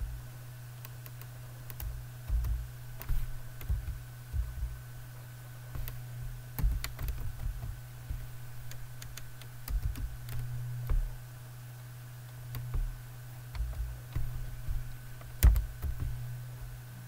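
Computer keyboard typing: single keys pressed in slow, uneven clusters with pauses between, over a steady low hum.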